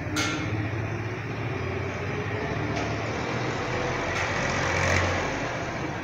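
Clicks and light knocks of hands working on a ceiling fan's hub and canopy, one sharp click just after the start, over a steady low rumble.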